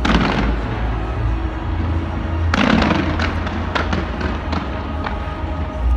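Fireworks going off: a burst right at the start and another about two and a half seconds in, followed by a quick run of crackling pops.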